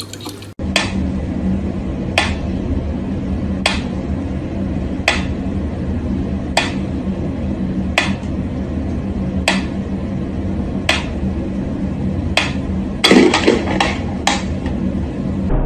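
A mechanical pendulum metronome ticking slowly, one sharp click about every second and a half, over a low steady hum. Near the end there is a quick run of several clicks and knocks close together.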